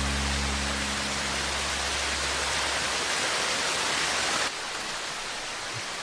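Steady rush of a waterfall, with the last low notes of background music fading out in the first second. About four and a half seconds in it cuts suddenly to a quieter steady hiss.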